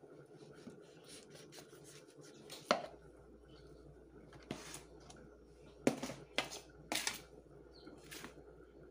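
A kitchen knife cutting through raw pork fat and skin, with faint scraping strokes. Then come several sharp knocks and clanks from a metal bowl as the meat pieces go into it, the loudest about six to seven seconds in.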